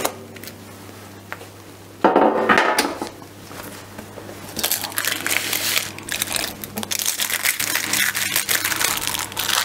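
Baking paper rustling and crinkling under a baked potato rösti as the sheet is pulled and straightened on a wooden board, with a short louder noise about two seconds in.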